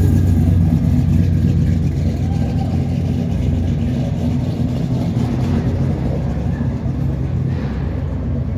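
Big-block V8 car's exhaust rumbling steadily as it rolls past at low speed, slowly fading near the end.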